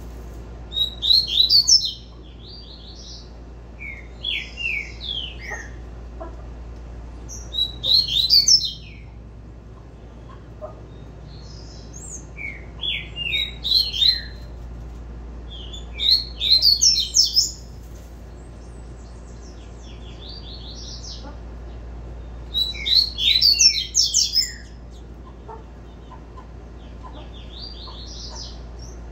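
Young double-collared seedeater (coleiro) singing the 'tui-tui' song: about seven short phrases of fast, high notes, one every three to five seconds.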